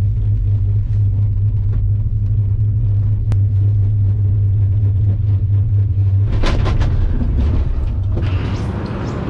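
Steady low hum and rumble of a gondola lift cabin riding the haul cable. About six seconds in, the cabin enters the top station, and clicks and rattling take over as it comes off the line onto the station's rails.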